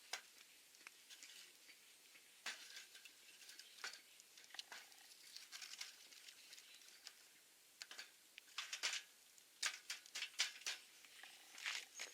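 Wood campfire crackling, with irregular sharp pops and snaps that come thicker in the second half.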